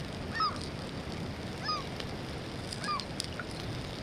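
Gulls calling: three short, arching cries, evenly spaced about a second and a quarter apart.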